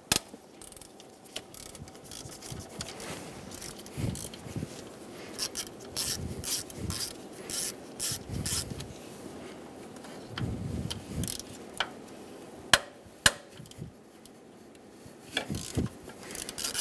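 Ratchet with a 10 mm socket loosening the thermostat-cover bolts: irregular runs of clicking and metal scraping, with a few sharp clicks in the second half.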